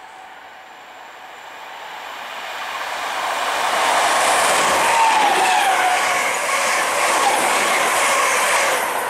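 Two coupled Class 325 electric mail units passing at speed. The sound builds from a distant rush to a loud, close roar of wheels on rail and air, with a whine that drops in pitch as the units go by about five seconds in.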